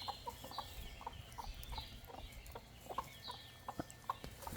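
Chickens clucking: many short, low clucks at an uneven pace, with short, high falling peeps over them.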